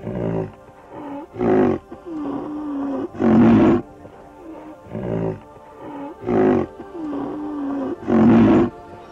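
A big cat roaring in short calls, six of them about every one and a half seconds, over soft background music.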